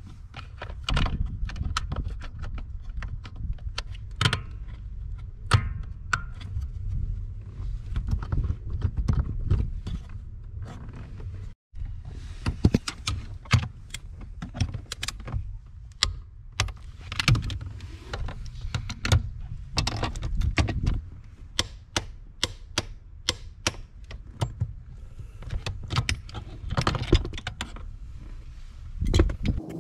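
Irregular clicks, clinks and knocks of tools and metal parts being handled, over a low steady rumble.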